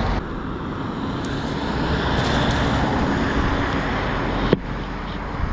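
Steady rumble of road traffic and wind on the microphone while a cast net is thrown and lands on the water, with one sharp knock about four and a half seconds in.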